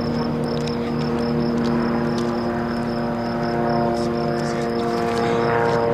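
Single-engine high-wing propeller plane flying overhead: a steady propeller-and-engine drone with a strong low hum.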